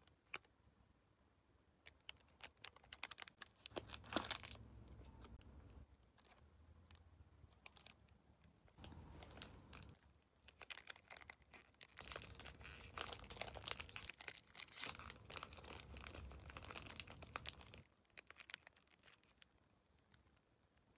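Faint crinkling and tearing of a Choco Pie's shiny foil-like plastic wrapper being handled and opened by hand. It comes in two bouts, a shorter one early and a longer, busier one in the middle, and stops a few seconds before the end.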